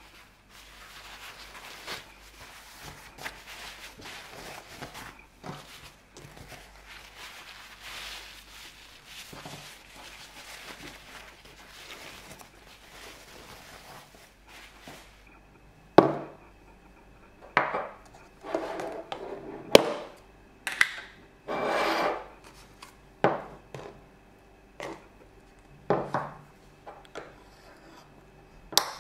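Kitchen paper towel pressed and rubbed over a raw ribeye steak to pat it dry before searing: a steady papery rustle with small crinkles. About halfway through it gives way to a run of separate sharp clinks and short scrapes as a knife scoops soft butter from a plastic tub onto a small ceramic plate.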